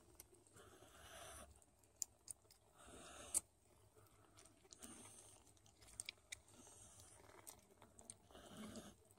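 Faint suckling of newborn Don Sphynx kittens nursing at their mother: soft, wet mouth smacks with a few sharp clicks scattered through.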